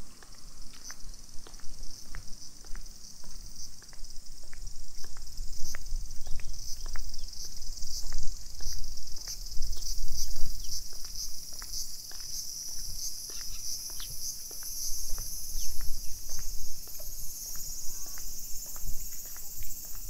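Cicadas droning steadily in the trees in a high-pitched chorus, over a walker's footsteps on brick paving at about two steps a second.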